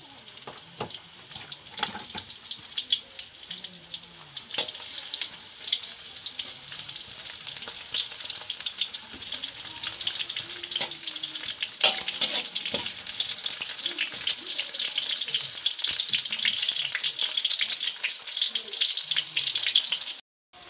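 Sliced garlic and shallots sizzling and crackling in hot oil in a wok, stirred with a metal spatula; the sizzle grows louder over the first few seconds. The aromatics are starting to dry out and give off their smell.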